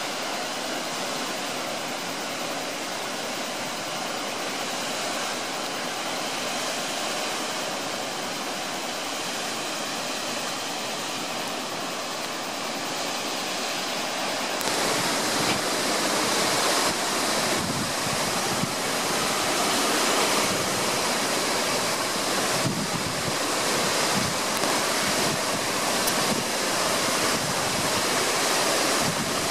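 Steady rush of a waterfall plunging into a pool. About halfway through it cuts to a louder, fuller rush with an uneven low rumble.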